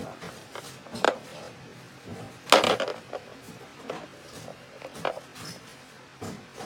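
Wooden stacking-toy pieces knocking and clattering on a plastic seat tray, a handful of separate knocks, the loudest about two and a half seconds in.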